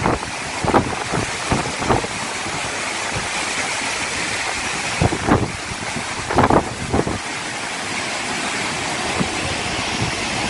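Cyclone wind rushing through dense trees, with several loud gusts buffeting the microphone, the strongest about five to seven seconds in.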